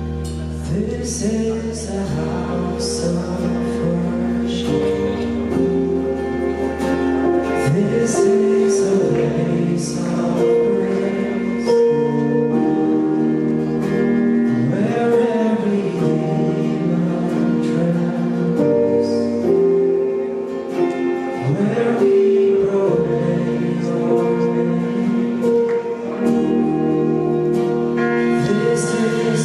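Praise-and-worship music with singing: sustained chords over a low bass, voices singing, and repeated cymbal-like strikes.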